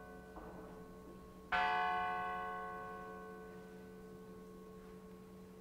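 Church bell struck once about one and a half seconds in, ringing out and slowly fading; the ring of an earlier stroke is dying away at the start.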